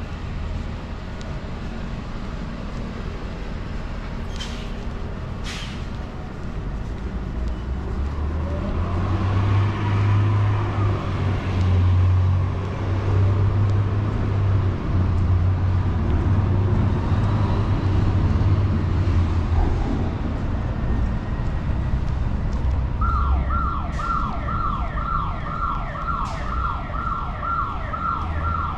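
Street traffic rumbling, swelling as a heavy vehicle passes, with two sharp clicks about five seconds in. Near the end an emergency vehicle's siren starts: a steady high wail with fast repeating yelps over it.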